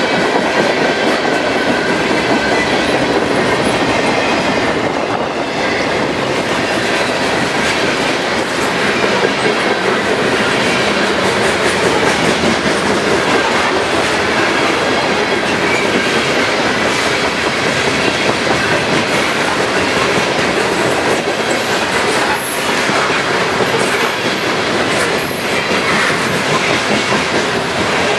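Freight cars of a fast manifest train rolling past close by at speed: steady, loud wheel-on-rail noise, with sharp clicks of the wheels over the rails that come more often in the second half.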